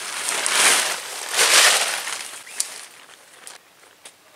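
Nylon tent fabric rustling and flapping as a small tent is unfolded and shaken out. It is loudest in the first two seconds, then fades.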